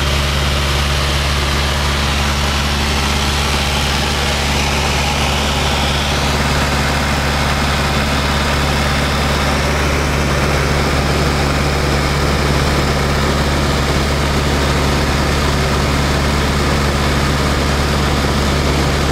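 Luscombe light aircraft's piston engine and propeller droning steadily in flight, heard inside the cabin as a constant low hum under a steady rush of air and engine noise.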